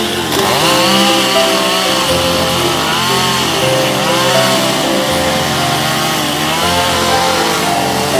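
Stihl chainsaw cutting into a western red cedar plank, its engine pitch rising and falling about once a second as the chain bites and eases off the wood.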